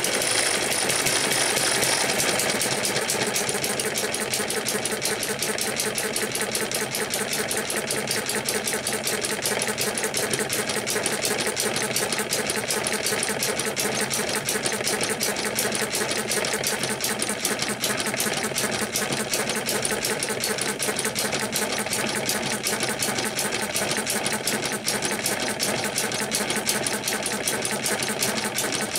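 Eachine ET1 model hit-and-miss gas engine running at speed, a fast, steady mechanical clatter, with its belt driving a small 12 V DC motor as a generator. The sound starts abruptly and is a little brighter for the first two seconds.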